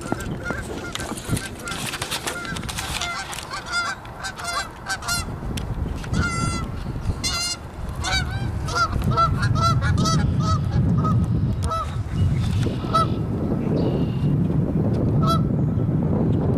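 Canada geese honking over and over, the calls dense at first and thinning out in the second half. A low rumble rises under them from about halfway through.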